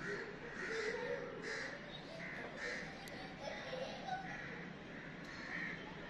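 Birds cawing repeatedly, a string of about eight short, harsh calls.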